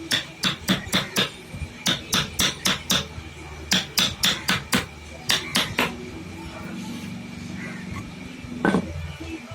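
Hammer tapping quickly on woodwork, about four to five light blows a second in runs with short breaks, stopping about six seconds in; one louder single knock near the end.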